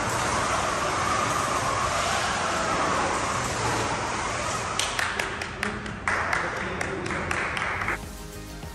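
FIRST Robotics Competition robot's electric drive motors whining as it drives a slalom course, the pitch rising and falling with speed. From about five seconds in come a series of sharp clicks and knocks, and the sound cuts off near the end.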